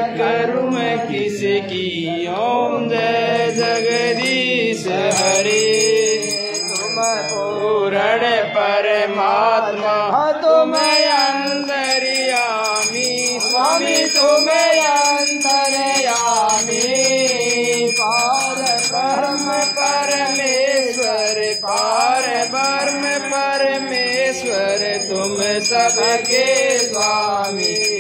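Hindu devotional hymn sung to a tune without pause, with a small hand bell ringing steadily through the second half, as is done during aarti.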